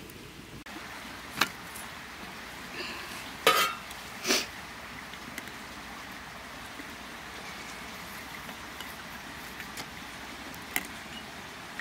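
A few sharp knocks and clinks of cooking utensils and dishes, the loudest two about three and a half and four seconds in, the first with a short ring, over a steady outdoor background hiss.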